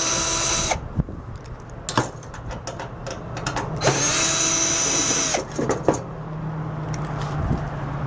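Cordless drill-driver running in two short bursts, driving out the screws that hold a microwave oven's magnetron, with a steady motor whine; a few light clicks of metal and handling come between the runs.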